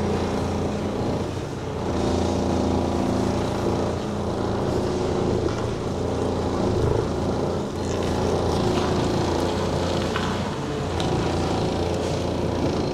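Lorry's diesel engine running steadily at low revs, heard from inside the cab, while the truck creeps forward through a tight manoeuvre.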